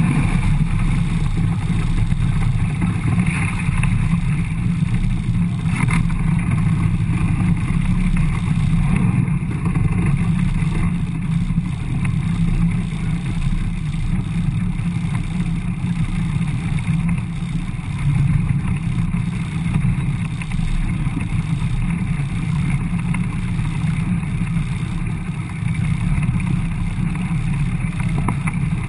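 Motorboat engine running, with water rushing past the hull and wind on the microphone, as the boat eases off from planing speed to a slow cruise.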